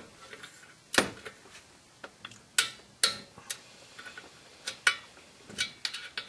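Irregular sharp metallic clicks and knocks of a wrench and bit socket working the bolts of a BMW E46 clutch pressure plate as they are tightened to spec.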